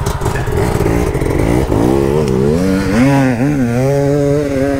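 Dirt bike engine revving up and down on a loose, sandy hill climb, its pitch rising and falling with the throttle from about a second and a half in. Under it runs the steady pulsing idle of another dirt bike close by.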